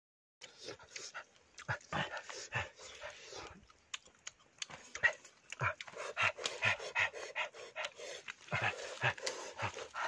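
Two people eating roasted chicken noisily: wet chewing, lip-smacking and sucking at the meat, with short breathy puffs of air between bites, the breathing of a mouth burning from hot chilli sauce.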